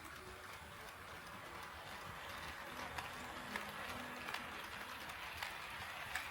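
HO-scale model train rolling along KATO Unitrack, a steady rolling hiss growing louder as it comes nearer, with irregular sharp clicks from the wheels crossing rail joints from about halfway through.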